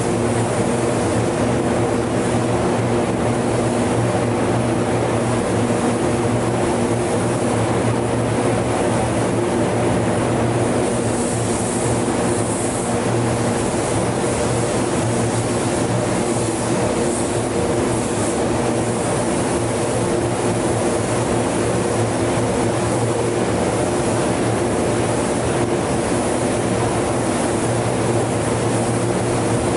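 Paint booth machinery running with a steady, even hum, under the hiss of a gravity-feed spray gun spraying paint onto a car's rear bumper. The hiss grows brighter for a couple of seconds about halfway through.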